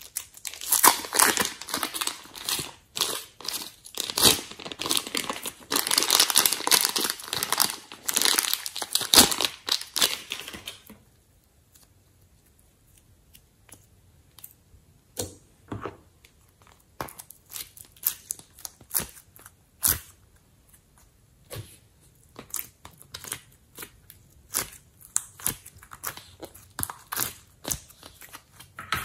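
Slime being squished and kneaded by hand, with dense crackling and popping for about the first ten seconds, then scattered single pops.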